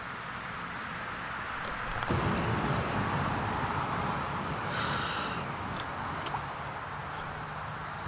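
Steady high-pitched insect chorus, with rustling and handling noise from about two seconds in as a handheld digital scale is brought out and handled.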